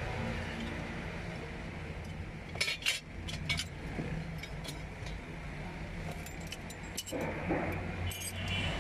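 Light metallic clinks and clicks of tools being handled during repair work, a few scattered strokes, over a steady low hum.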